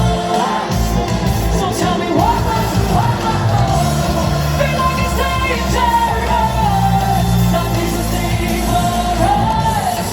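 Live pop/hip-hop song played loud over a concert sound system, with a voice singing a melody over steady bass notes.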